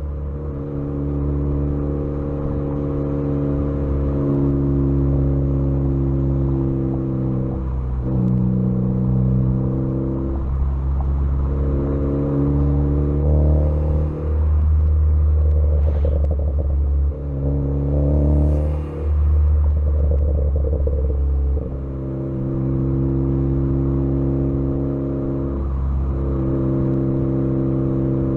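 Tuned Ford Focus ST engine, picked up by intake and exhaust microphones, running under way: a steady drone at held revs whose pitch steps up and down several times, with brief lifts off the throttle. A sharp pop about halfway through, from the tune's crackle map on the overrun.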